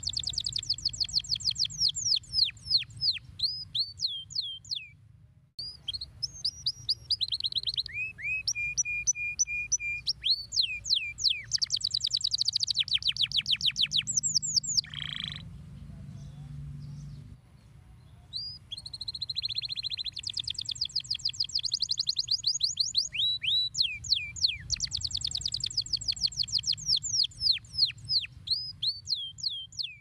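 Domestic canary singing long rolling phrases of rapid repeated falling notes, with a stretch of steady, lower, evenly repeated notes and brief pauses about five and seventeen seconds in. A low background hum runs underneath.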